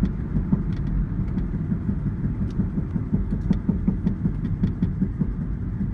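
2000 Honda Civic EX coasting in neutral while slowing down: steady engine and road rumble with irregular light clicks and knocks scattered throughout. This is the knocking and popping noise the owner suspects could be the transmission, suspension, wheel bearings or CV joints.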